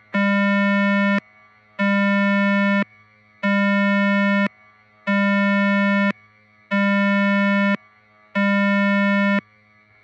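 Mock emergency alert tone: six identical low, buzzy electronic beeps, each about a second long with short gaps between, over a faint steady hum.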